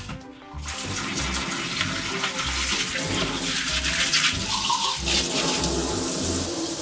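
Kitchen tap running into a stainless steel sink as a glass cup is rinsed under the stream; the water comes on about half a second in and shuts off near the end.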